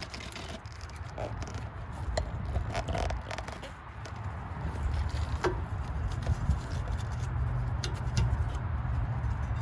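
Wire brush scraping over the brake caliper bracket's pad mating surface, cleaning it for new rear brake pads, in short scratchy strokes with light metallic clicks over a steady low rumble.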